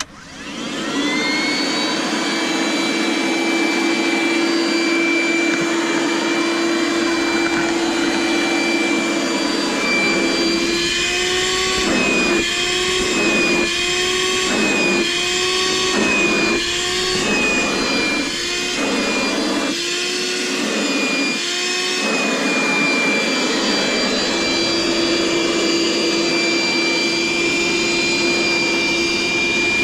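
DeWalt DCV581H cordless/corded wet-dry vacuum switching on and spinning up to a steady whine. From about a third of the way in, its pitch dips and recovers roughly once a second, about eleven times, as the floor nozzle is worked back and forth over a rug and the airflow is choked on each stroke. After that it settles back to a steady whine.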